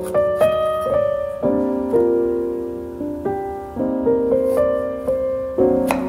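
Background piano music: a gentle melody of notes struck about twice a second and left to ring.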